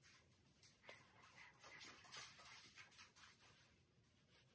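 Faint soft swishing of a makeup blending brush being swept over facial skin, a quick run of light strokes that die away about three and a half seconds in.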